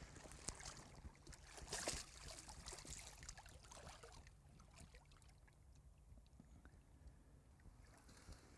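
Faint splashing and sloshing of shallow river water as a landed salmon is handled around a wading angler's legs, with one sharper splash about two seconds in, then quieter lapping.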